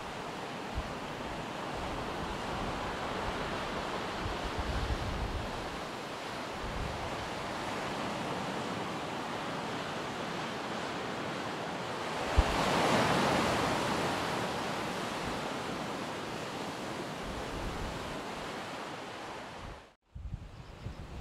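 Surf breaking on a beach, heard as a steady wash of waves that swells to a louder break a little past halfway. Low gusts of wind rumble on the microphone now and then. The sound cuts off suddenly just before the end.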